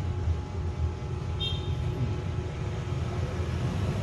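Steady low mechanical rumble like a running vehicle, with a brief high squeak about a second and a half in.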